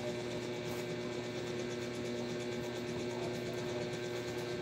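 A steady mechanical hum with a few held tones and a soft hiss, unchanging throughout, like a motor or appliance running in the room.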